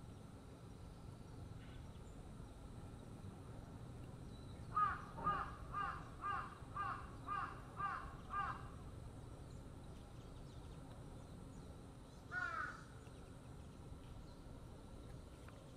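A crow cawing: a quick run of about eight caws, roughly two a second, starting about five seconds in, then a single caw a few seconds later.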